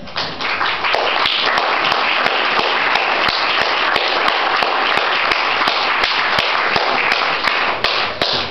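Room full of seated guests applauding steadily, dense clapping that begins at once and dies down near the end.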